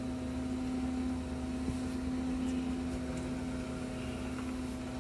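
A steady mechanical hum with one low tone and a few fainter tones above it, plus faint strokes of a paintbrush on wood.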